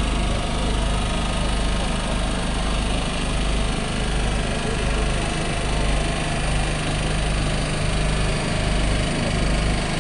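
Heavy-haul transport's diesel engine running steadily under load as the multi-axle modular trailer rolls slowly past, a constant low rumble and hum.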